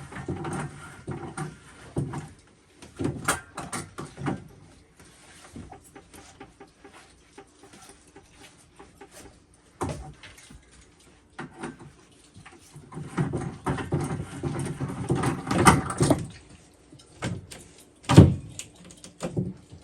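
Irregular knocks, clicks and clatter from work on the water heater's plumbing, denser about two thirds of the way through, with one heavy thump near the end.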